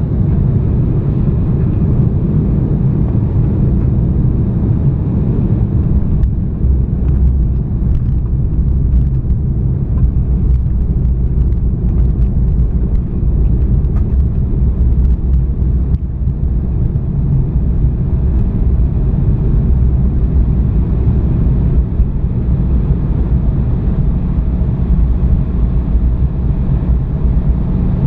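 Steady low rumble of engine and airflow noise inside the cabin of a regional jet airliner, with a few faint clicks in the middle stretch.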